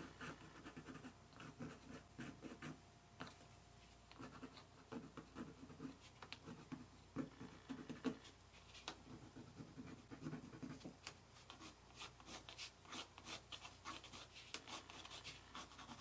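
Faint scratching of a colored pencil stroked over textured watercolor paper in many short, irregular strokes.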